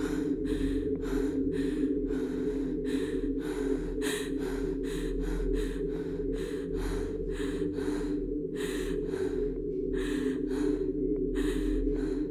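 A woman breathing in rapid gasps, about three breaths a second, hyperventilating. Underneath is a low, steady drone from the film score.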